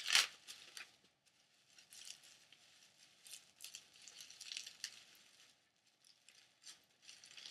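Plastic wrapping crinkling and rustling in short, uneven bursts as it is peeled off a doll head by hand. The loudest rustle comes right at the start; the rest are softer.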